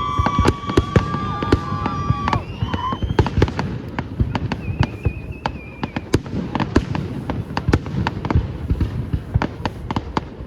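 Fireworks going off in rapid succession, a dense run of sharp bangs and crackles. Whistling shells sound over them: a steady whistle ends about two seconds in, and a higher one rises briefly around the middle.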